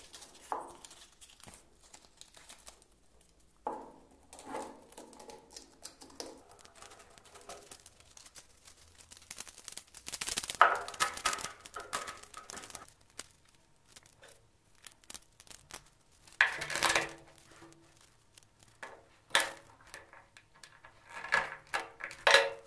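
Sandpaper being handled, folded and fitted around a wooden sanding drum: irregular crinkling and rustling of the stiff abrasive sheet, with scraping as its edges are pushed into the drum's slot. Louder bursts come about halfway through and again in the last few seconds.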